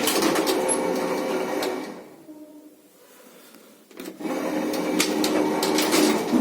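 Passenger lift machinery running with a loud rattle and hum, broken by a quieter gap of about two seconds before it starts up loud again about four seconds in.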